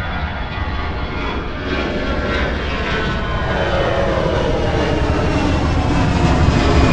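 Twin-engine jet airliner climbing out after takeoff and passing overhead: steady jet engine noise that grows gradually louder, with a whine that slides down in pitch as the plane goes over.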